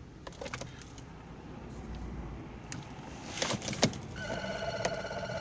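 Ignition key of a BMW E46 diesel clicking as it is turned back on to preheat the glow plugs, the sharpest clicks about three and a half seconds in. A steady, slightly pulsing electronic tone follows as the ignition comes on.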